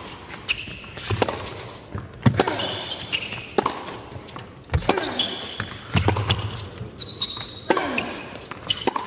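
Tennis rally on a hard court: racket strikes on the ball and ball bounces about every second and a quarter, with short high squeaks of shoes on the court between them.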